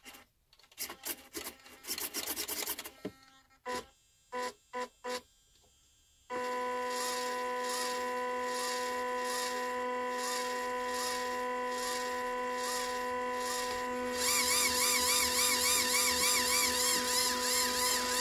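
WPL B-36 Ural RC truck's electric motor and gearbox turning the driveshafts with the truck standing in place on the bench. It starts with a few short throttle blips, then settles into a steady whine with a regular wobble, louder for the last few seconds. The driveshafts are bent, which makes the motor labour.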